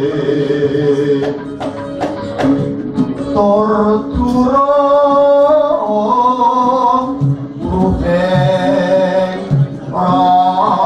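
Javanese gamelan accompanying palaran singing: the ensemble plays with sharp drum strokes at first, and a solo voice enters about three and a half seconds in with a long, wavering sung line, pausing and coming back twice.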